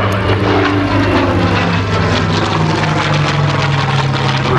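Propeller airplane's engine running loudly as it flies past, its pitch falling slowly.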